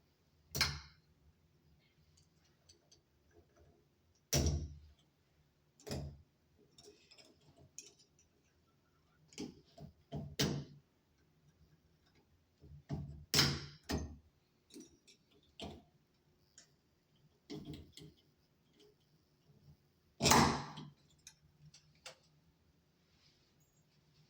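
Irregular metal clicks and knocks from hand tools working on an Acorn shower valve's trim while a small pin is taken out, the loudest knocks about 13 and 20 seconds in.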